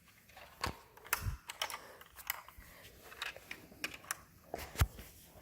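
Irregular light clicks and taps, about a dozen, from a small die-cast toy car being handled, the loudest near the end.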